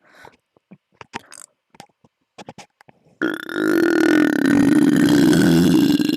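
A man's long, loud burp, a deliberate 'epic burp', starting about three seconds in and held steadily, after a few faint clicks.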